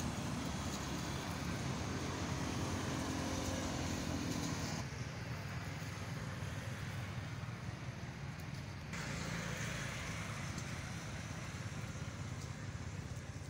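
Steady background rumble of road traffic, with no calls from the monkeys; the ambience changes abruptly twice, about five and nine seconds in.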